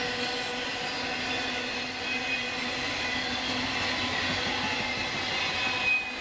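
Cars of a Union Pacific intermodal freight train rolling steadily past, with wheel-on-rail noise and a high, sustained squeal of the wheels.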